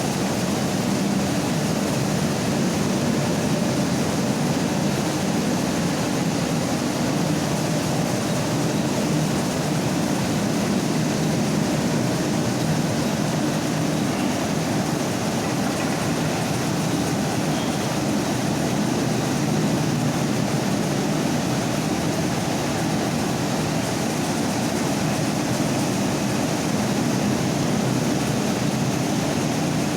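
Mini rice mill machine running steadily, a constant loud mechanical hum and rush with no change in speed.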